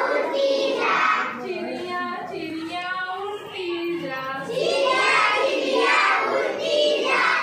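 A group of young children singing a Hindi rhyme together in chorus. Loud sung phrases come at the start and again from about halfway, with a quieter stretch between.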